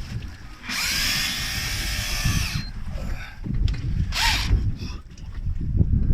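Fishing reel whirring with a high whine for about two seconds, then a second short whir a couple of seconds later, over a steady low rumble.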